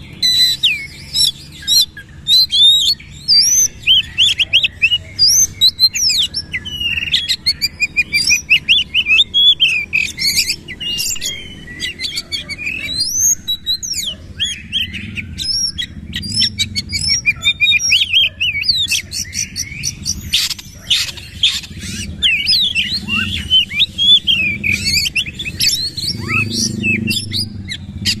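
Oriental magpie-robin (kacer) in full song: a long, varied run of rapid whistles, slurred rising and falling notes and sharp clicks, with short breaks. This is the loud rapid-fire delivery kacer keepers call "nembak" (shooting).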